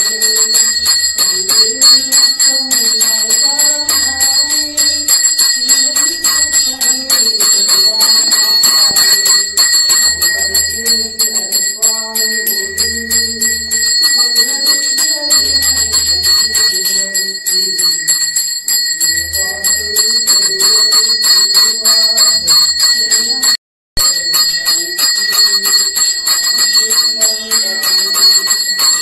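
Brass temple hand bell rung rapidly and without pause for the lamp offering (aarti), its high ringing tones steady over a devotional melody. The sound cuts out for a moment about five seconds before the end.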